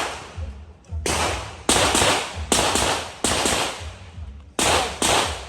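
Glock 34 Gen 5 9mm pistol firing a string of about six shots at uneven spacing, some in quick pairs, each shot trailing off in an echo.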